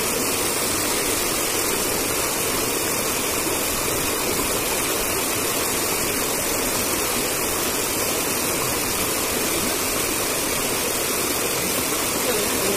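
Small cascade of a rocky stream pouring over boulders into a pool: a steady rush of water.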